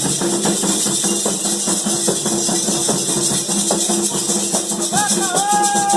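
Candomblé ritual music: drums and shaken rattles playing a steady, fast rhythm, with a voice starting a sung line near the end.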